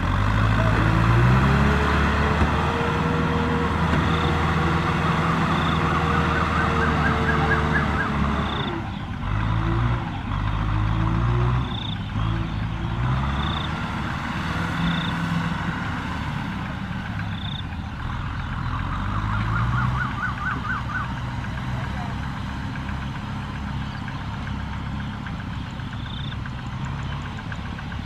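Kubota farm tractor's diesel engine working under load as it pulls a trailer loaded with sacks of rice, its pitch climbing about a second in, dropping near nine seconds, then rising and falling again.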